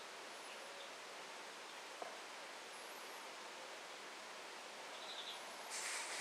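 Faint steady background hiss with a few faint high chirps. Near the end comes a short rustle.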